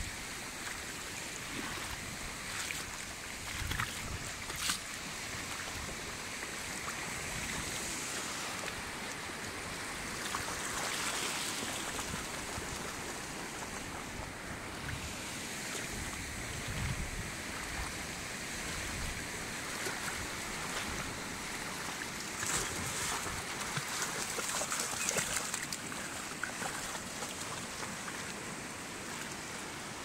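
Steady wash of ocean surf breaking over a shallow rocky shore, with a few brief clicks.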